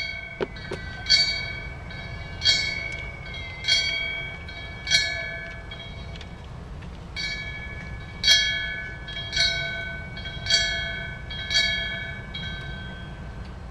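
Ceremonial fire bell struck slowly, about one stroke every second and a quarter, each stroke ringing out and fading: four strokes, a pause of about two seconds, then five more. The rings come in sets of five, the fire service's bell signal for the death of a fellow firefighter.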